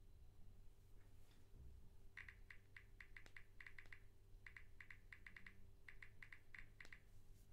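Smartphone on-screen keyboard clicking as a message is typed: about twenty soft, quick key taps in three short runs, faint over a low room hum.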